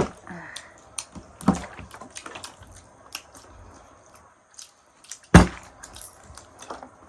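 A bottle tossed in bottle flips and landing with a knock, once about a second and a half in and again, louder, about five seconds in, among small clicks.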